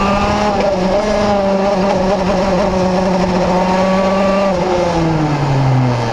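Vortex RVXX 125 cc two-stroke engine of a KZ2 shifter kart running hard with a steady note, heard onboard; about four and a half seconds in, the revs fall away steadily.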